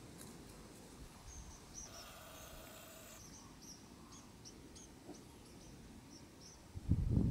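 Quiet outdoor ambience with a small bird chirping repeatedly in short high notes. A steady whining tone sounds for about a second, about two seconds in. Near the end comes a loud, brief low rumble.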